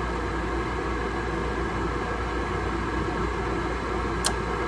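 Gas furnace running at high fire: a steady rush of burners and fans over a constant low hum, with one sharp click near the end.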